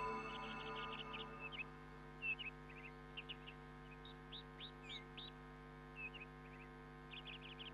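Small birds chirping in short, quick calls, scattered throughout, over a faint steady hum.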